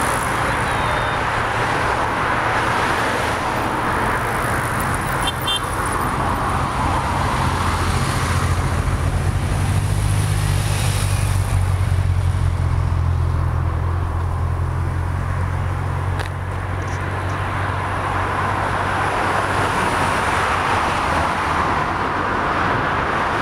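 Road traffic noise: cars passing along a multi-lane road, with a steady low hum under it and a swell as a vehicle goes by about ten seconds in.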